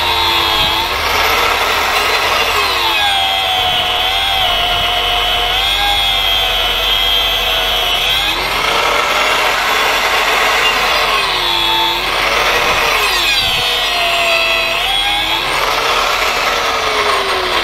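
Angle grinder with a diamond disc pressed into a car tyre's rubber tread, its motor whine dropping in pitch each time the disc bites and rising again as it eases off, several times over. The diamond disc is barely cutting the rubber.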